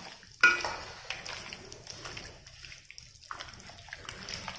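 Wet squelching and squishing of a bare hand kneading yogurt into masala-coated chicken pieces in a pan, with one loud squelch about half a second in and softer irregular squishes after.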